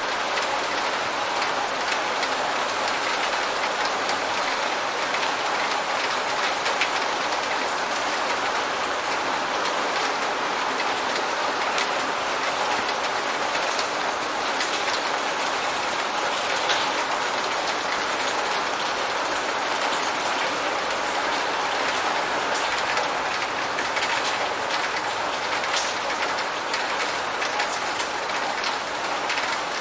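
Steady rain falling on a surface: an even hiss dotted with the ticks of single drops.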